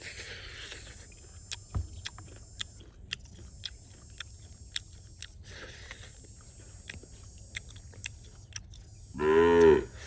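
A steady high chorus of insects, broken by scattered sharp clicks of chewing and crunching. Near the end a cow gives one short, low moo, the loudest sound here.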